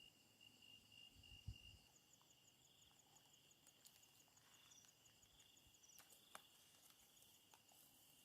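Faint night chorus of crickets and other insects: a pulsing high trill, joined about two seconds in by a fast, higher-pitched ticking, with a few faint clicks.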